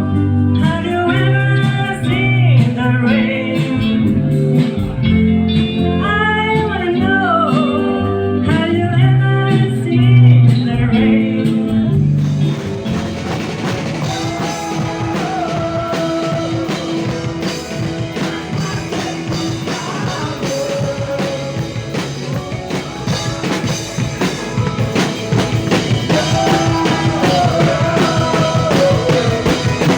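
A song with a singing voice and guitar in a blues-rock style, turning fuller with steady drums and cymbals about twelve seconds in.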